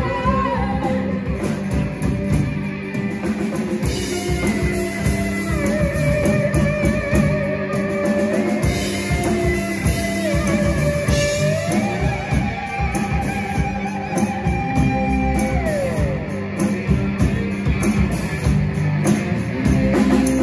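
Live blues-rock band playing an instrumental break: electric guitar lead with long held notes that slide up and down in pitch, over a steady drum kit and rhythm guitar.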